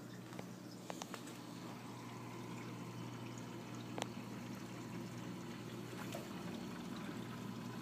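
Reef aquarium's water running with a steady trickle over a low, steady hum, with a few light clicks about a second in and a sharper one about four seconds in.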